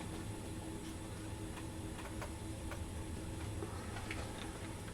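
Faint, irregular ticks and clicks, roughly one or two a second, over a steady low hum.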